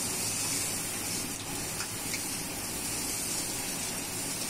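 Sliced capsicum, onion and carrot sizzling in hot oil in an iron Chinese wok as they are stir-fried: a steady, even hiss with a few faint ladle taps.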